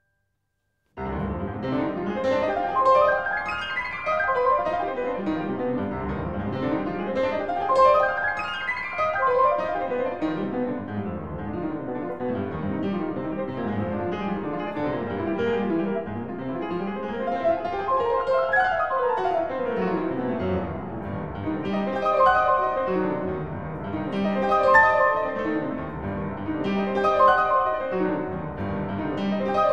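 Classical chamber music led by piano, playing fast runs that sweep up and down, with strings faintly beneath. It starts about a second in, after a brief silence.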